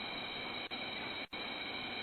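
Steady static hiss from a doorbell camera's audio, cutting out briefly twice, about two-thirds of a second in and again just after a second.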